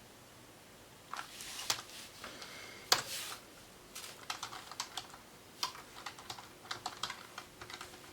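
Typing on a computer keyboard: irregular keystrokes and short runs of keystrokes starting about a second in.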